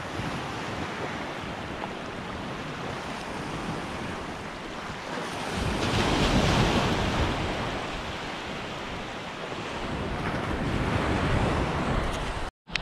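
Small surf waves breaking and washing up a sandy beach, with wind on the microphone adding a low rumble. A wave breaks loudest about six seconds in, and the sound cuts out briefly near the end.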